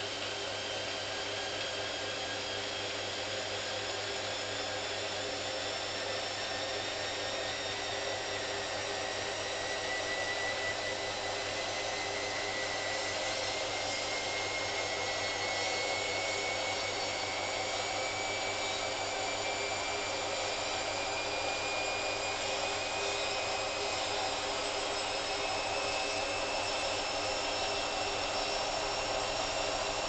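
Hoover CA232 front-loading washing machine spinning: a steady motor and drum noise with a whine that rises slowly in pitch and gets a little louder as the drum gathers speed.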